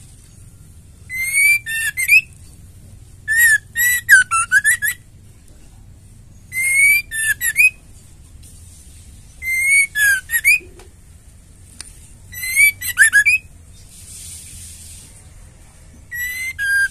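Female white-rumped shama singing in six short bursts, each of clear whistled notes that rise and fall, mixed with rapid high trills, with pauses of a second or two between bursts.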